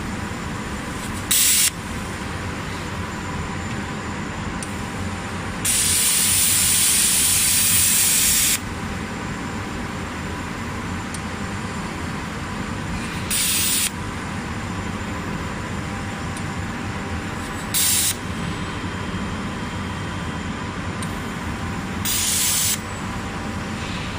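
Hypertherm XPR300 plasma torch on a CNC cutting machine firing in five loud bursts of hiss, most under a second, one lasting about three seconds, over a steady machine hum.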